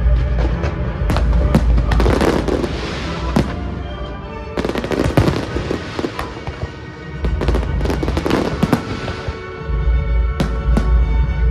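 Fireworks bursting in quick succession, with sharp bangs and dense crackle in two thick clusters, over a low rumble. Music plays underneath throughout.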